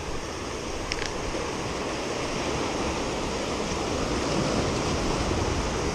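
Surf washing in over a rocky shoreline: a steady rush of waves that swells slightly.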